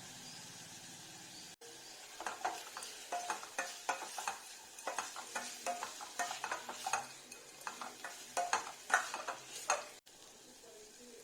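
A cooking utensil stirring and scraping vegetables in a pan, in an irregular clatter of strokes starting about two seconds in, over a steady sizzle.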